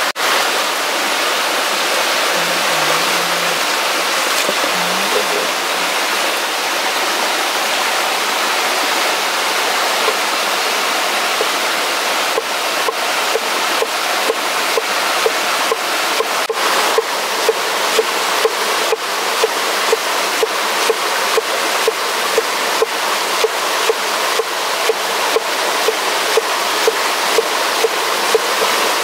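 Phaluong knife chopping through napa cabbage onto a wooden board: scattered chops about halfway through, then an even rhythm of about two chops a second. Under it runs a steady rushing noise like running water.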